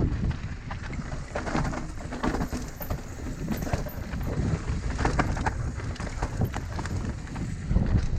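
Mountain bike riding down a dirt trail: steady wind rumble on the microphone with frequent quick clicks and rattles from the bike going over rough ground.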